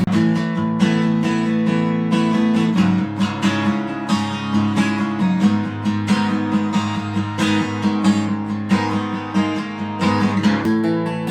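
Acoustic guitar being strummed, with a quick run of chord attacks several times a second.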